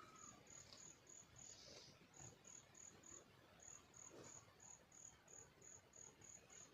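Faint cricket chirping: short high-pitched chirps repeated evenly, about three a second.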